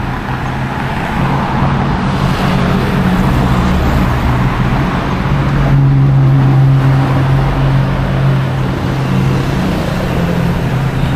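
Street traffic with a motor vehicle engine running close by, its hum growing louder about six seconds in and easing off a couple of seconds later.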